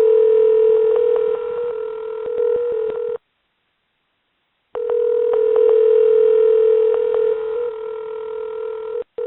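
Steady telephone tone heard down a phone line, in two long stretches separated by a gap of about a second and a half, with small clicks over it.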